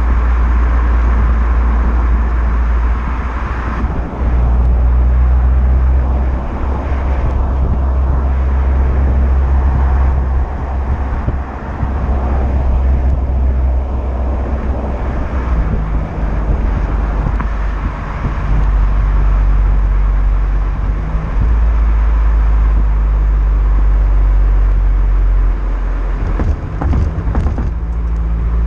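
Renault Mégane GT's turbocharged 1.6 TCe four-cylinder running through its stock exhaust, a steady engine note over a deep rumble, its pitch stepping up and down a few times.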